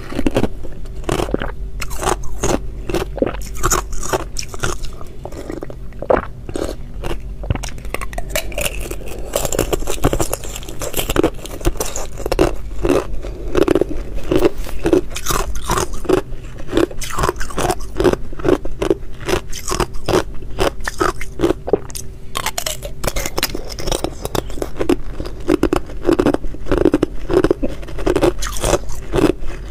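Thin shells of clear ice being bitten and chewed: a dense run of sharp crunches and crackles, many a second, without a pause.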